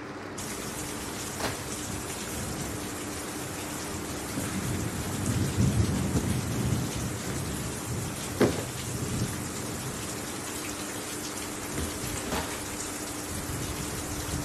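Steady rain with a low rumble of thunder around the middle, and a few short sharp knocks, one about eight seconds in.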